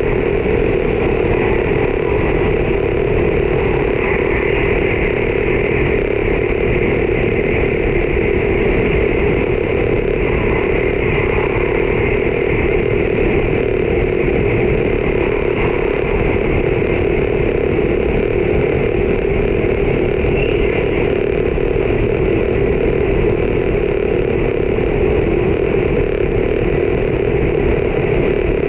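Steady running noise inside the cabin of an E4 series Max double-deck Shinkansen travelling at speed: an even, unbroken rumble with a steady drone.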